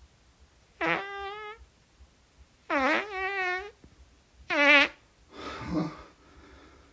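A man breaking wind: three short, squeaky, pitched farts, each dropping in pitch at the start and then holding a steady tone, followed by a softer, noisier one; nervous gas.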